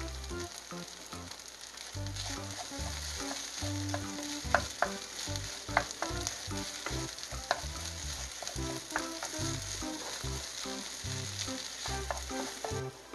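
Fried rice with pork and sliced green chilies sizzling in a nonstick frying pan while it is stirred and tossed with a wooden spatula, with a few sharp taps and scrapes of the spatula against the pan. The sizzle cuts off just before the end.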